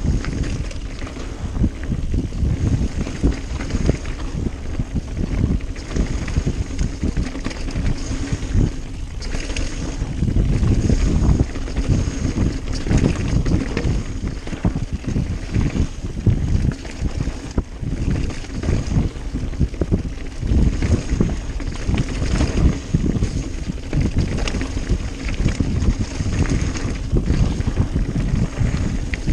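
Wind buffeting the microphone as a mountain bike runs fast down a rough trail, with the bike rattling and knocking continuously over the bumps.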